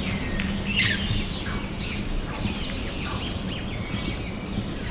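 Several birds chirping and calling over steady background noise, with a loud, steeply falling call about a second in.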